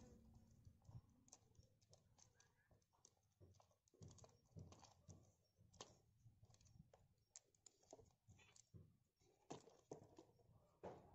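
Faint, irregular clicking of a steel saw chain being handled and seated onto the guide bar and sprocket of an angle-grinder chainsaw attachment, its links ticking against each other and the bar.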